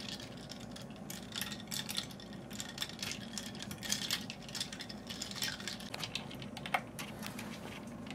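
A long metal spoon stirring a drink over ice in a stemmed glass, with quick irregular clinks against the glass and ice cubes.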